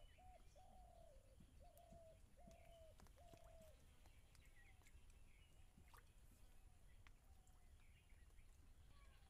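Faint bird calls: a run of about five short, evenly spaced low notes in the first few seconds, then a few fainter ones later, with high chirps of small birds behind.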